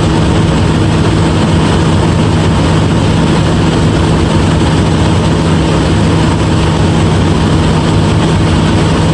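A heavy diesel engine running steadily with a constant low hum.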